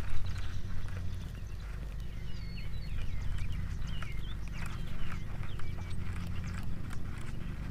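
Short, quick chirping bird calls that bend up and down in pitch, mostly through the middle, over scattered sharp clicks from a baitcasting reel being handled and wound, with a steady low rumble underneath.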